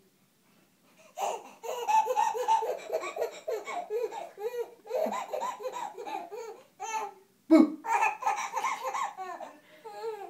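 A baby cackling with belly laughs in quick repeated bursts, starting about a second in. The laughter pauses briefly, then comes back with a sudden loud burst and keeps going almost to the end.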